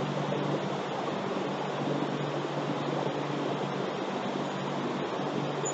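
Steady low machine hum under an even rushing noise, holding level and unchanged throughout.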